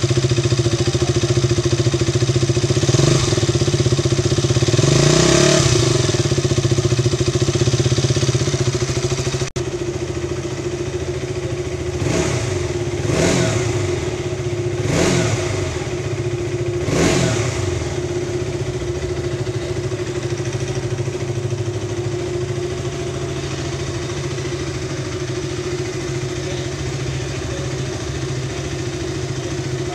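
KTM Duke 200's single-cylinder, fuel-injected, water-cooled engine idling, revved a few seconds in. Near the middle it gives four quick throttle blips, each rising and falling in pitch, then settles back to a steady idle.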